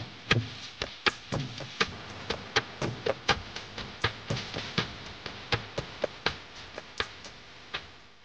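A quick, irregular series of sharp taps or knocks, about three a second, each with a short dull thump beneath it.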